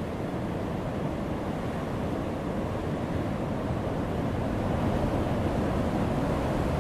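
Heavy surf breaking on a rocky shore: a steady, deep rushing wash of waves that swells a little louder past the middle.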